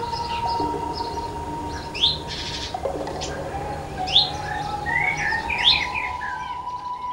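Songbird chirping: a few short, sharply rising chirps spaced a couple of seconds apart, then a quick flurry of calls near the end. A steady high tone holds underneath.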